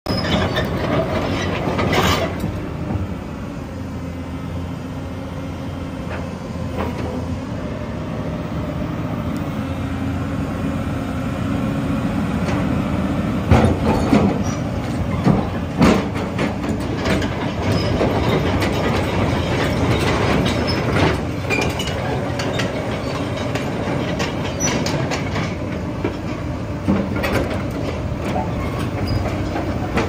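Hyundai Robex 220LC-9S crawler excavator working: its diesel engine running steadily under hydraulic load while the boom presses on the bucket to lift the machine. Sharp metallic clanks and some squealing from the steel tracks and linkage come now and then, loudest about 13 to 16 seconds in.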